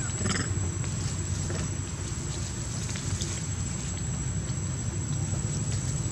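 Steady outdoor background noise: a low rumble under a thin, constant high-pitched whine, with a few faint clicks.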